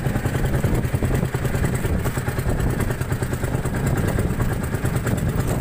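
Engine of a wooden outrigger fishing boat running steadily with a constant low rumble.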